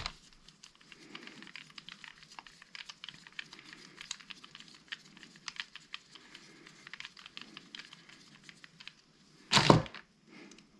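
Light, rapid clicking and scraping of hands and a small tool working on a Stihl FS45 trimmer's diaphragm carburetor as it is taken apart, with one louder knock near the end.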